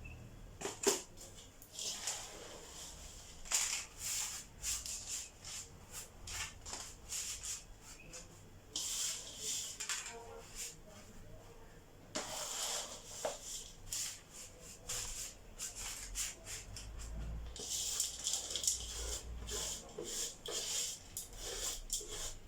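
Oat mixture coated in oil and honey being spread out on a baking tray: irregular scraping and rustling strokes with small clicks against the tray.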